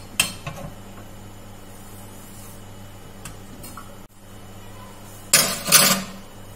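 A few light clinks of kitchen utensils and cups, then about five seconds in a loud, brief rustling and scraping as the phone is picked up and handled.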